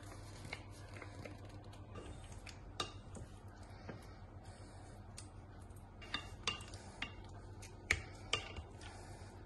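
Kitchen tongs clicking and tapping against a glass baking dish while turning sauce-coated pork belly strips: a few sharp clicks, most of them in the second half, over a low steady hum.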